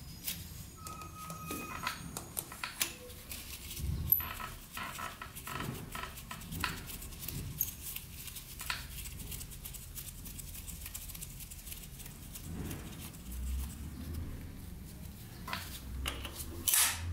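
Scattered light clicks and taps as gloved hands handle wires and small fittings on a two-stroke dirt bike engine with its cylinder head off.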